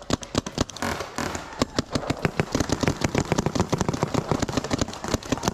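Paintball markers firing rapidly, about ten sharp pops a second without a break.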